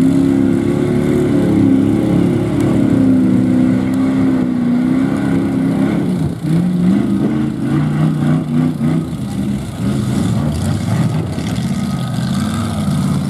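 Lifted mud truck's engine revving hard at high revs as it churns through a mud hole. The revs sag about six seconds in, then climb and rise and fall again.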